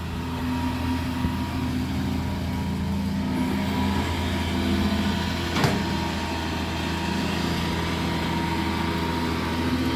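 Boat engine running steadily at a constant speed, a low hum with a steady tone above it. A single sharp click about five and a half seconds in.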